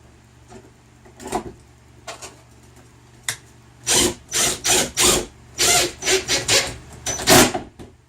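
A few scattered scrapes, then from about four seconds in a run of short rubbing strokes, roughly three a second, ending shortly before the end.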